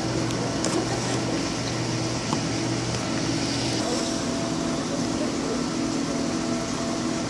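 Steady whir and hiss of machinery with a low hum, typical of aquarium pumps and ventilation. The deepest part of the hum drops out about four seconds in.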